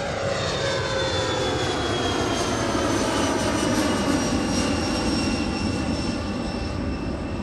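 Twin-engine regional jet climbing out after takeoff: a steady rush of jet noise with several high whines that slide slowly down in pitch.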